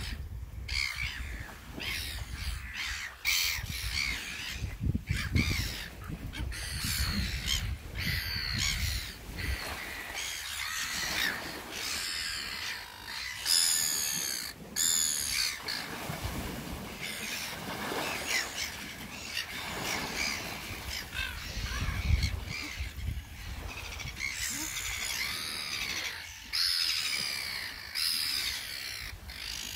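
A flock of red-billed gulls squabbling, with many harsh, overlapping calls repeated throughout. A low rumble sits under the calls for the first several seconds and again briefly past the middle.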